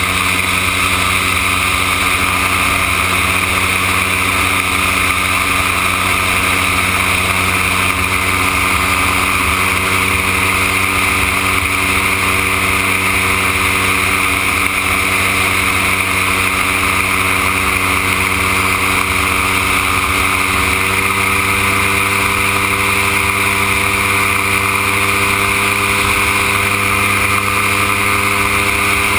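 Dominator gyroplane's engine and pusher propeller running steadily in cruise flight, heard from on board, with wind rush over the microphone.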